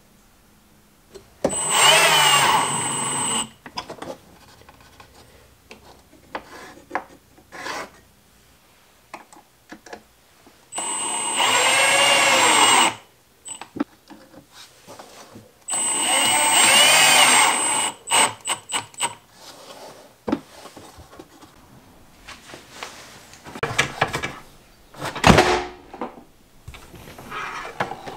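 Milwaukee Fuel cordless drill/driver driving screws into a plywood panel: three runs of about two seconds each, the motor whine bending in pitch as each screw bites. Scattered clicks and knocks fall between the runs.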